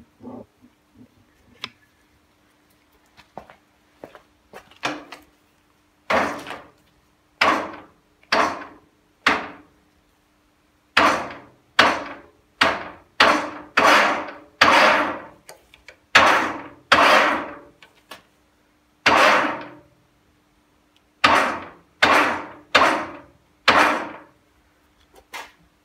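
A series of about twenty short knocks, each with a brief ringing tail, in uneven groups, from a Schaublin 53 milling machine's table and feed gearbox being worked up and down by hand. A faint steady hum runs underneath.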